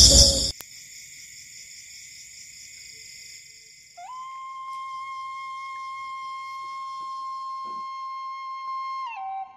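Background music: a loud passage cuts off about half a second in, then a flute holds one long steady note from about four seconds in and slides down in pitch near the end.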